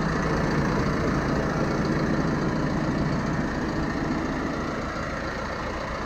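Steyr Profi 4110 CVT tractor engine idling steadily while the tractor stands hitched to a dump trailer, easing off slightly in the second half.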